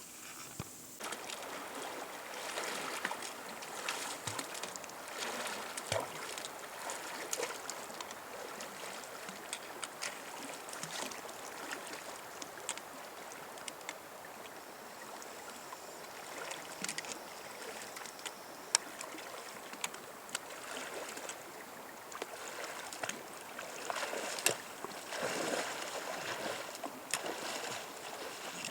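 Water splashing and sloshing, with many scattered small clicks and knocks.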